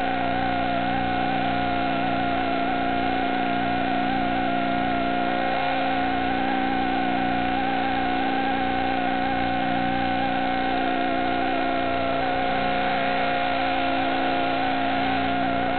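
Small quadcopter's electric motors and propellers whining steadily in flight, heard from its onboard camera: a whine of several tones, one of them wavering slightly in pitch.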